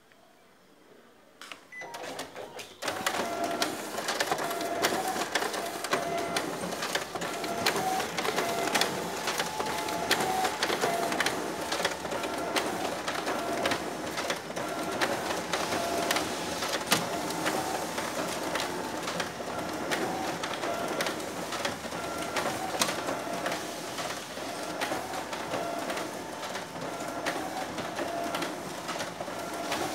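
Office multifunction copier starting up about two seconds in and then running a copy job, its automatic document feeder pulling A4 originals through for scanning while copies are printed, a steady whirr full of rapid clicks and clacks.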